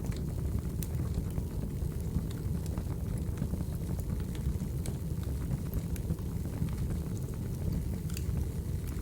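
Crackling wood fire: a steady low rumble of burning logs with irregular sharp pops and crackles.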